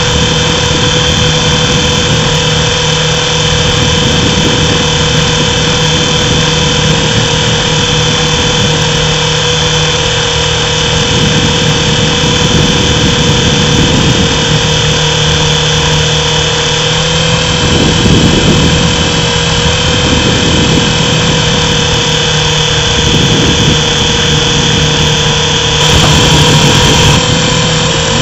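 Small RC helicopter's motor and rotors running with a steady, loud whine, heard from the camera carried aboard. The pitch shifts slightly now and then as it flies.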